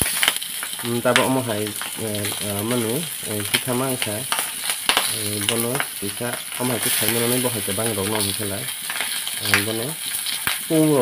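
Battered chicken skin sizzling in hot oil in a shallow iron pan: a steady high hiss with scattered sharp pops. A low, wavering, voice-like hum comes and goes underneath.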